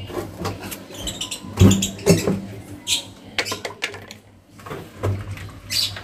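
A hand scooping and stirring cement-based waterproofing mix in a metal pail, a scatter of scrapes and clicks with a few short squeaks.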